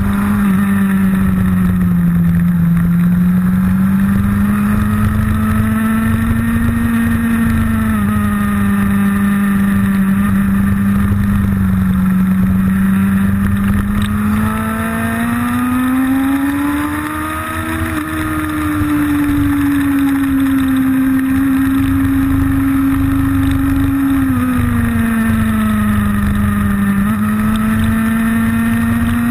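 Motorcycle engine heard from on board while riding hard through bends: the engine note climbs and falls with the throttle. Twice it drops suddenly as a higher gear is taken, and it peaks and eases off again about two-thirds of the way in.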